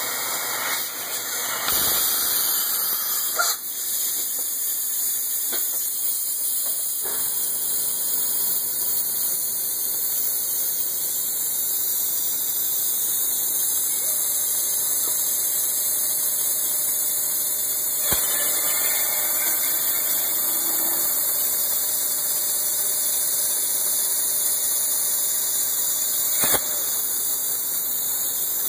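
A machine tool running while cutting metal, heard as a steady hiss with a few sharp clicks.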